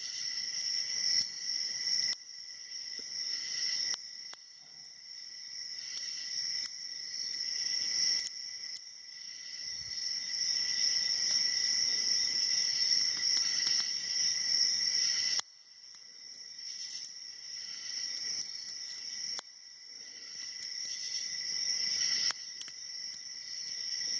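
A steady, high insect buzz that slowly swells and then cuts off suddenly several times, with faint scattered clicks of a pick and tension wrench working the pins of a padlock.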